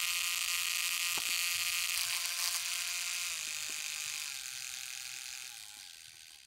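LEGO 47154 9V geared motor running with an M motor pinion fitted, a steady high whine with gear noise. It is a little noisy, which is put down to minor damage done to the pinion when it was pulled. Near the end it drops in pitch and fades away as it winds down.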